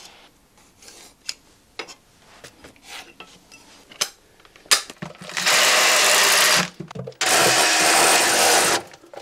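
Cordless drill with a long bit boring into the wall, run in two bursts of about a second and a half each with a short pause between, starting about halfway through. Before it, a few light clicks of handling.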